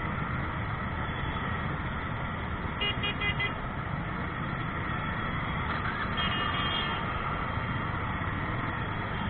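Jammed motorcycle traffic: many motorbike engines running in a steady rumble, with a horn giving a few short quick toots about three seconds in and a longer horn blast a little after six seconds.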